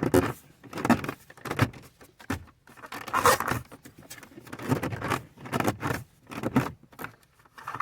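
Mercedes C240 instrument cluster being pushed into its opening in the dashboard: repeated plastic scraping and knocking as the housing is worked in toward its retaining clips.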